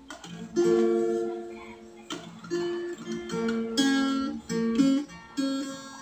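Small acoustic guitar played by hand: a slow run of about ten separate plucked notes and strummed chords, each left to ring briefly, fading out near the end.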